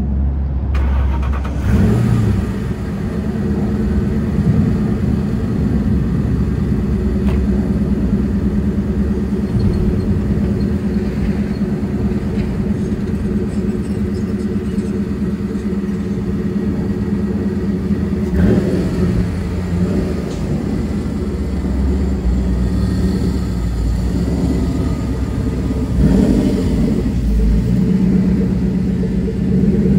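Roush Mustang's engine idling steadily, heard from beside the parked car, with its note swelling briefly a few times. The car has just been started after sitting three months without being run.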